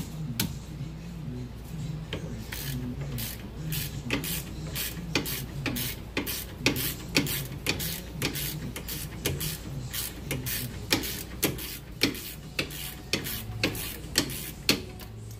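Hand ratchet clicking in repeated strokes, about two clicks a second, as a 15 mm rear brake caliper bracket bolt is worked loose.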